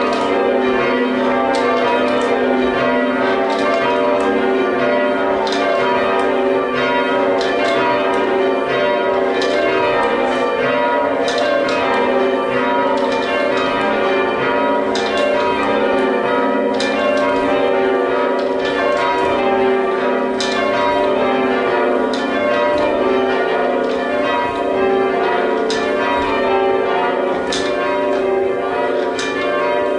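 A ring of church tower bells rung full-circle in the English style, the bells striking one after another in a steady, even sequence.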